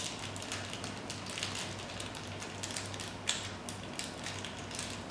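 Small clear plastic parts bag crinkling and crackling in the hands as it is worked open, a quick run of small crackles with a few sharper ones about three seconds in, over a steady low hum.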